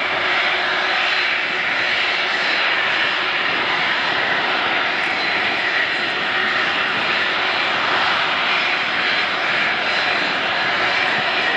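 Airbus A330-243 MRTT's two Rolls-Royce Trent 700 turbofans at taxi power: a steady jet rush with a thin, constant high whine as the aircraft taxis.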